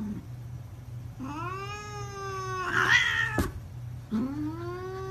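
Domestic cat yowling at another cat in two long drawn-out calls, each sliding up in pitch and then held. The first breaks into a harsh, raspy hiss near its end. The calls are a defensive warning.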